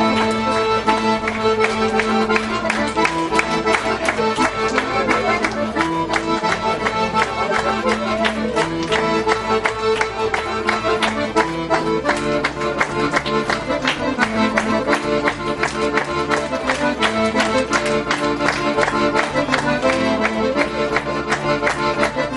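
Traditional Circassian dance music led by accordion, playing on without pause over a quick, steady beat.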